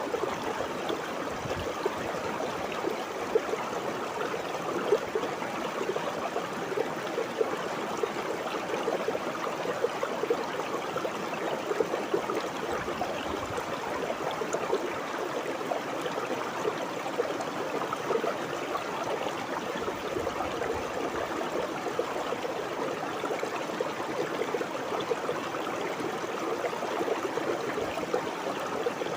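Shallow river water flowing and burbling over rocks, a steady, unbroken rush with a fine splashing texture.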